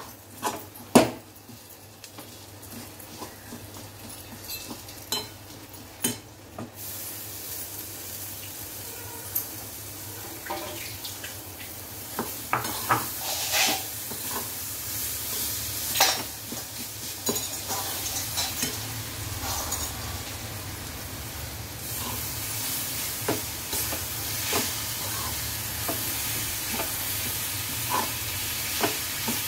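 Spatula stirring and scraping a sticky jaggery and grated-coconut filling in a metal kadhai over the heat, with scattered knocks of the spatula on the pan over a steady sizzle that grows louder after about seven seconds.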